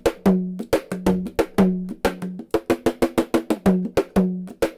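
Homemade kanjira built from an old tool, played solo in a quick rhythm of sharp strokes, about five a second. Some strokes ring with a low pitched tone, others are short and dry.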